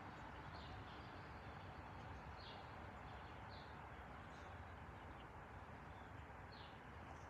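Faint steady rumble of a Boeing 767 freighter's jet engines flying high overhead, with a few short, high bird chirps.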